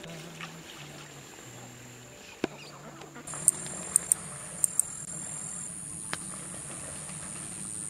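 Small cicada calling: a steady high-pitched buzz sets in about three seconds in, with several sharp clicks in its first couple of seconds.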